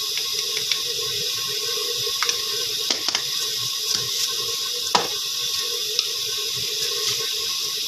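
A steady hiss from a pot of water heating on a stove burner, with a few light clicks now and then.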